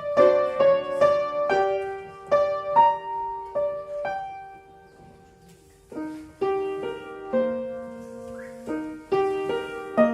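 Solo piano playing a measured ballet-class accompaniment for rond de jambe par terre, notes struck several to a bar and ringing; it dies away to a lull a little past halfway, then resumes.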